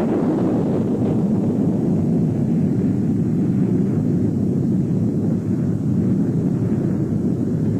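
A loud, steady low rumble with no clear tune or beat.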